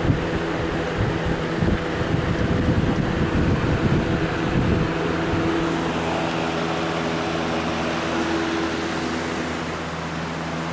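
Lakewood box fan, a rebadged Windmere, running on high with its grill off: a steady motor hum under a rush of air. For the first five seconds or so the airflow buffets the microphone, then the sound settles.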